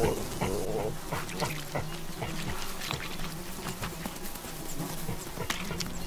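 Young olive baboon giving a wavering cry of distress as bees sting it, in the first second. Then bees buzzing as a faint steady hum, with scattered crackles and rustles in dry grass.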